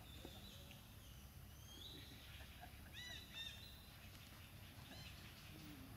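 Faint high animal chirps over a low steady background rumble, with a short pair of arched, quickly repeated calls about three seconds in.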